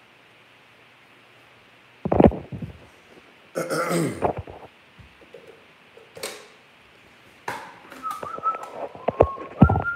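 Several short, loud vocal noises from a man, the first like a belch about two seconds in, with clicks and knocks from a phone being handled near the end.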